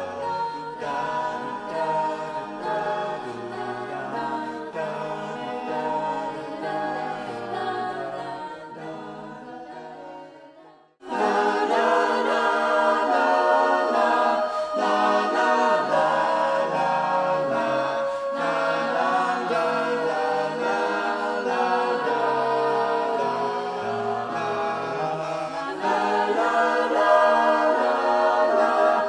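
Mixed-voice a cappella ensemble of ten singers singing in sustained, layered harmony. The singing fades away to a moment of silence about eleven seconds in, then the whole group comes back in suddenly and louder.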